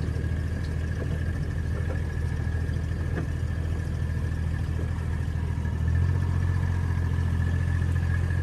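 A vehicle engine running steadily, with a faint steady whine above it; the engine sound grows louder about six seconds in.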